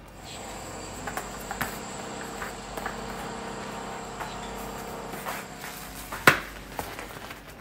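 Cardboard eyeshadow-palette box being handled and opened: light taps and rustles, with one sharp snap about six seconds in, over a steady faint high-pitched hum.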